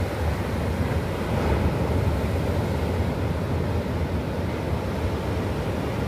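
Small waves breaking and washing up a flat sandy beach: a steady rush of surf, swelling a little about two seconds in, over a low rumble of wind on the microphone.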